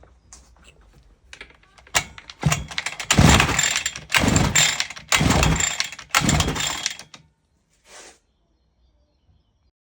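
Petrol strimmer being pull-started: four quick pulls of the recoil starter, each a loud second-long burst of the engine spinning over and dying away, followed by a short faint rattle. The engine doesn't keep running, which the owner puts down to a blocked carburettor.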